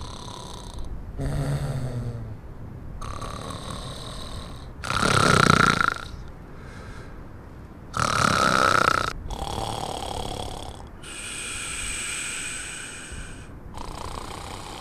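A person snoring loudly: a run of about eight snores, one every second or two, some carrying a whistling note. The snores about five and eight seconds in are the loudest.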